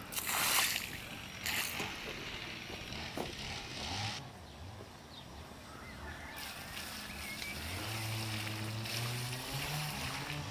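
Water poured from a metal bucket, splashing and running into a muddy soil furrow. A low, steady hum joins in near the end.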